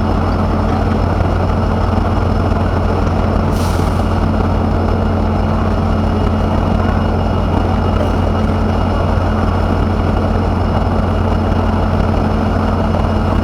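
WAP 7 electric locomotive running with a loud, steady hum and low drone that does not change, with a brief hiss about three and a half seconds in.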